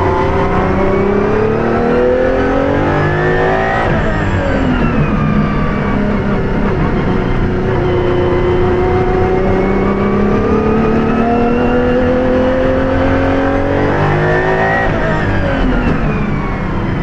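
Apollo Intensa Emozione's 6.3-litre naturally aspirated V12 accelerating hard through its Hewland six-speed sequential straight-cut gearbox. The pitch climbs and drops sharply at upshifts, about four seconds in and again near the end.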